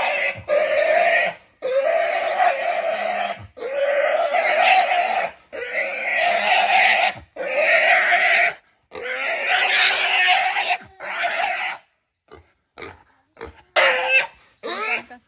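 Wild boar squealing loudly in long screams, about one every two seconds, in distress as it is being caught. Near the end the screams give way to short, fainter squeals.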